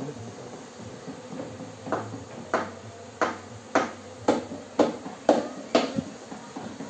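A series of sharp knocks, about two a second, eight in a row, starting about two seconds in.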